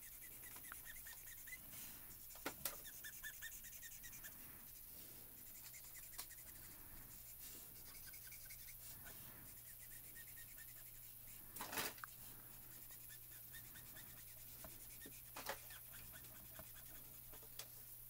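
Faint rubbing and squeaking of a Copic alcohol marker nib on cardstock during colouring and blending, with a few soft taps and knocks, the clearest about two-thirds of the way in, over a low steady hum.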